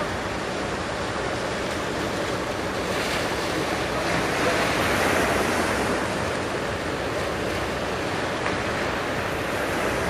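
Heavy surf washing and breaking at a river-mouth bar, with wind on the microphone. The wash swells louder about four to six seconds in.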